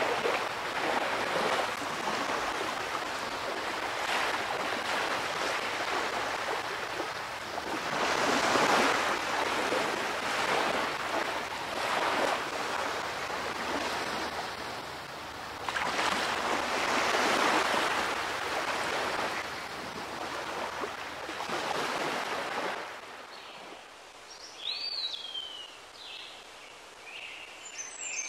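Ocean surf washing in and drawing back, swelling in surges every few seconds. About 23 s in the surf fades and birds start chirping, with a whistled call sliding down in pitch shortly after.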